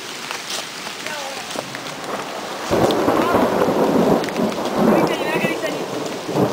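Rain falling steadily on forest foliage, with scattered drop ticks. About three seconds in, a loud low rumble of thunder starts suddenly and runs for about three seconds.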